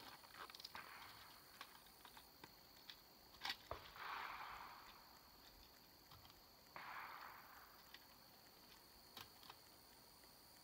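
Faint clicks and soft rustles of gear being handled, over a faint steady high-pitched tone. No gunshots.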